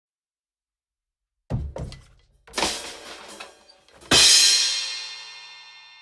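Intro sting of music and sound effects: two short deep drum hits about a second and a half in, a noisy hit with a hissing tail a second later, then a loud final impact about four seconds in whose bright ringing tail fades slowly.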